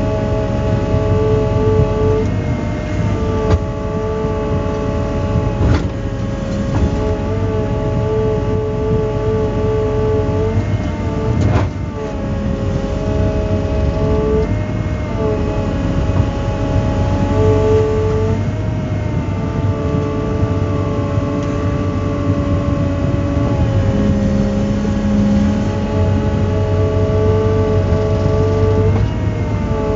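Volvo EW160A wheeled excavator's diesel engine and hydraulics running steadily under load, heard from inside the cab, the engine note dipping and rising every few seconds as the boom and grapple are worked. A few sharp knocks come through along the way.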